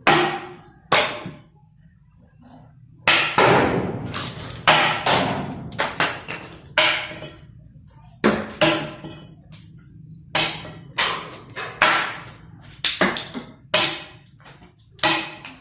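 Repeated heavy hammer blows, about fifteen in all at an uneven pace of roughly one a second, each a sharp strike with a short ringing tail.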